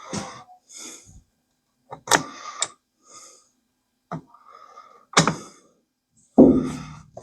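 Sharp clicks and knocks of tools and lock parts being handled at a sliding glass door, four or five separate taps with a heavier thud near the end.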